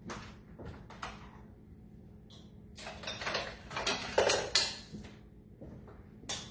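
Metal soup cans and kitchen utensils being handled at a glass mixing bowl: a run of short clatters and scrapes, loudest about four seconds in.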